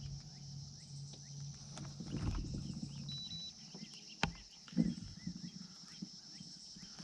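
Steady evening chorus of crickets and other insects, broken by a sharp click about four seconds in and a knock just after it: gear being handled on the boat. A low hum fades out about three seconds in.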